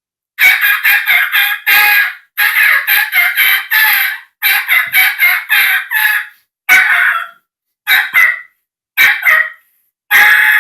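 Imitation of a turkey's call: runs of rapid, repeated notes, the first three runs about two seconds each, then shorter bursts with short pauses between.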